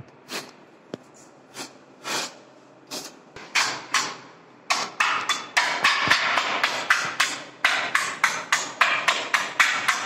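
A hand tool scraped over a painted wall in short rasping strokes. They come a few at a time at first, then from about five seconds in as a fast run of about three strokes a second.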